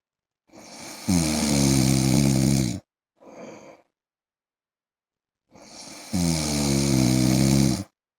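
A man snoring: two long, loud snores about five seconds apart, each starting as a breathy rush and turning into a buzzing tone that slides down in pitch, with a short, softer breath between them.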